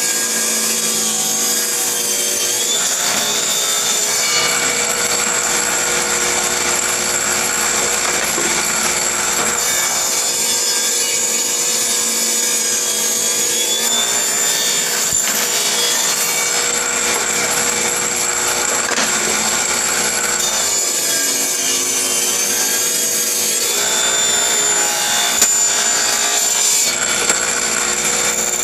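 A power tool running and working wood steadily, with a high whine over a rough rasping noise. The sound changes character abruptly every few seconds.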